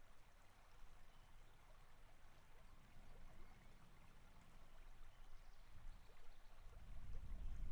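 Quiet forest ambience with a steady hiss of running water. A slow breath close to the microphone swells in near the end.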